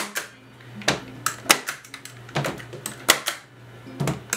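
Framer's points driver firing points into an old wooden window frame to hold the photos in: a series of sharp clacks spread unevenly over a few seconds, with small handling knocks between them.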